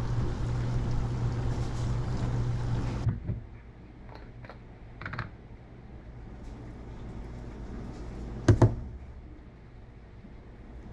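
Short clicks and taps of small spice jars being handled while a fish is seasoned by hand, with a loud double knock about eight and a half seconds in. Before that, a steady low hum cuts off abruptly about three seconds in.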